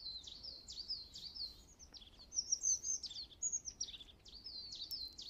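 Songbirds chirping softly in quick, high chirps, several a second, many dropping in pitch: a steady birdsong ambience.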